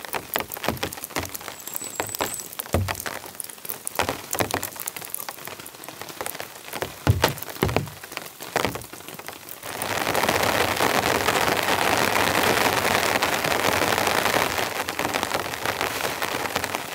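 Rain: for about the first ten seconds, scattered heavy drops patter one by one. Then, about ten seconds in, it becomes a steady, dense hiss of heavy rain.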